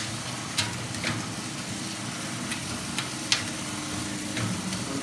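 Coffee roaster's cooling tray running: its electric motor hums steadily as the stirring arm sweeps freshly roasted beans around the stainless steel tray with a dry rustle. A few sharp clicks are scattered through it.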